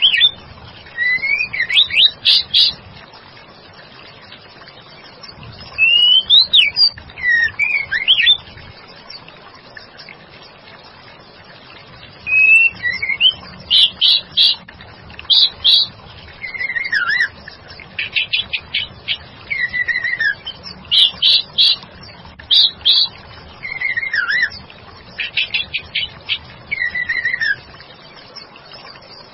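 White-rumped shama (murai batu) calling: short phrases of sliding whistles and quick runs of sharp repeated notes, separated by pauses of a few seconds. It is offered as a female shama's call, used as a lure to make a male shama answer.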